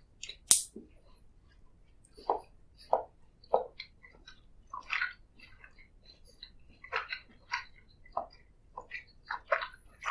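Close-miked chewing of food, short wet chews at a steady pace of about two a second. A single sharp click sounds about half a second in.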